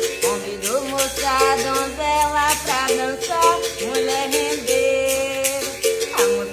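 Berimbau music with a rattling caxixi shaker and a singing voice over a steady held tone.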